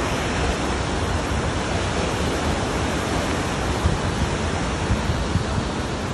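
Steady rush of a fast white-water mountain river tumbling over rocks, an even roar with no pauses. A few low bumps on the microphone about four to five seconds in.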